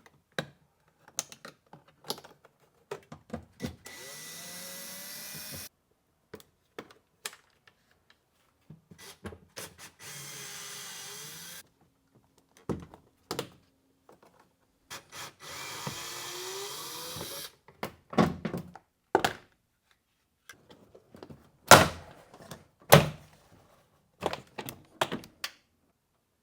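Cordless drill driver running in three short spurts of about two seconds each, backing out the door trim's Phillips screws, with small clicks and knocks of plastic trim being handled in between. Two loud knocks come near the end.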